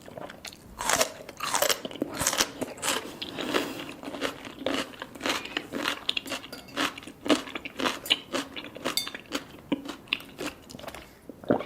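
A person chewing baby cuttlefish, with soft, crunchy bites and chews coming irregularly and close together.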